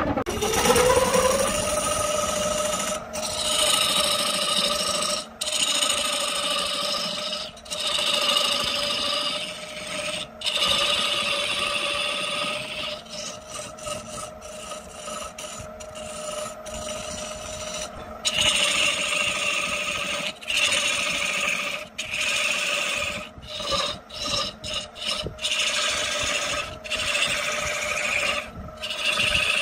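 Wood lathe motor spinning up to speed and then running steadily. A turning tool scrapes against the spinning wood in repeated passes, broken by many short pauses as the tool is lifted off.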